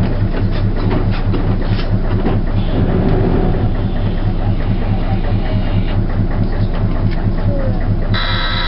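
The diesel engine of a Nanbu Jūkan Railway railbus running with a steady low throb, heard from inside the cab as it rolls along the track, with wheel clatter over the rails. A brief high-pitched tone comes in near the end.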